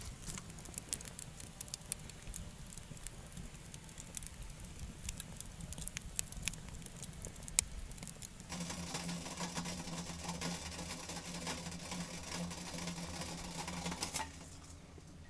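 Wood fire crackling, with scattered sharp pops. About eight seconds in, a steady rushing noise with a low hum joins it and cuts off suddenly near the end.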